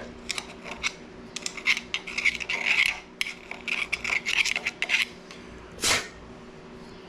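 Metal tool scraping and clicking inside the crankshaft's pilot bearing bore, digging out the bread packed in to push the old bearing out: a quick irregular run of small metallic clicks and scrapes, then one louder scuff near the end.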